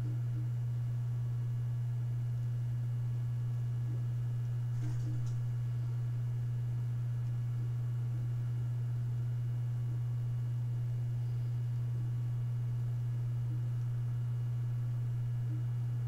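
Synology DS923+ NAS loaded with four Seagate IronWolf Pro 24TB 7200 rpm hard drives running while it boots: a steady low hum, with a couple of faint ticks about five seconds in.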